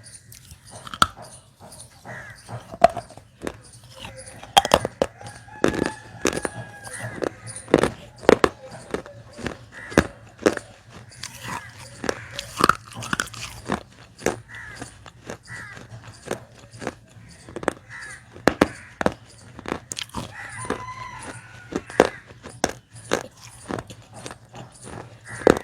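Dry, unsoaked baked-clay diya pieces being bitten and chewed close to the mic: a dense, irregular run of sharp crunches and cracks.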